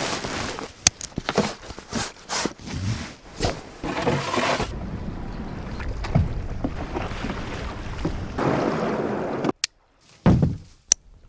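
Whitewater on a rapid splashing and sloshing against a boat, with repeated thuds and knocks; it cuts off suddenly near the end.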